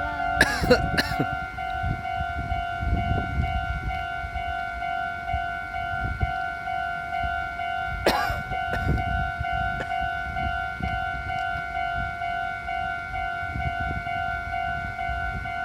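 Japanese railway level-crossing warning bell ringing, a quick steady repeated electronic ding, over low rumbling, with a few short sharp noises about half a second in and again about eight seconds in.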